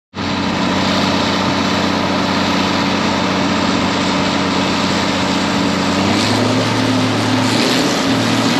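Large diesel engine of farm machinery running steadily under power, its pitch stepping up about six seconds in as the revs rise.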